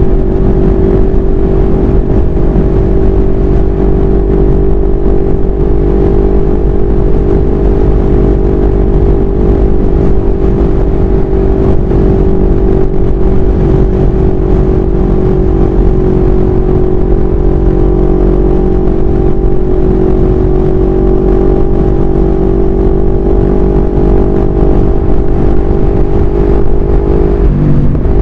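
CFMoto 400NK motorcycle's parallel-twin engine running at steady cruising revs at highway speed, with heavy wind rumble on the microphone. The engine note dips briefly near the end, as with a shift or a throttle change.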